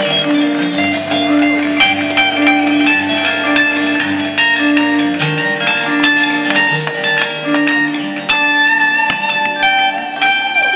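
Live band music without vocals: a guitar picking quick notes over a held low note. Crowd whoops begin right at the end.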